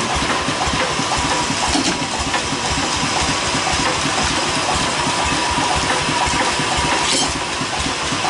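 Log band saw mill running, its engine beating fast and low under a steady high whine and hiss of the blade. There is a short rattle about seven seconds in.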